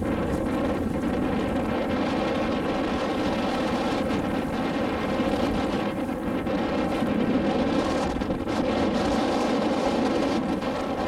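A motor launch's engine running steadily, a constant drone with an even stack of tones and no change in speed.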